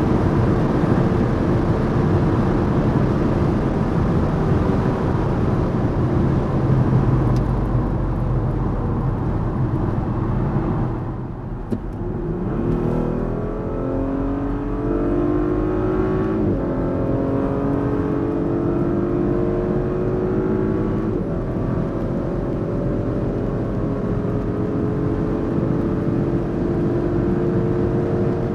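Audi SQ5's turbocharged 3.0-litre V6 driving at high speed under heavy road and wind noise. About eleven seconds in the engine note falls away as the throttle is lifted, then the car accelerates hard again, the engine pitch climbing and dropping at two upshifts about five seconds apart.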